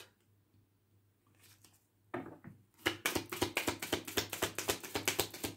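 A deck of reading cards being shuffled by hand. After about two seconds of near silence, a quick run of card clicks starts, about seven a second.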